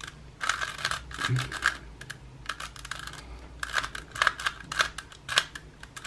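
Rubik's cube layers being turned in quick succession: an irregular run of small plastic clicks and clacks as a last-layer edge-swapping algorithm is carried out move by move.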